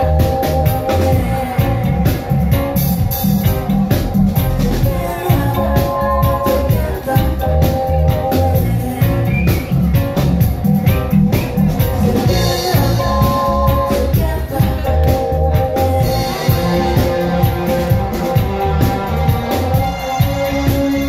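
A live reggae band plays through the venue sound system: a pulsing bass and drum groove under sustained keyboard chords that change every few seconds.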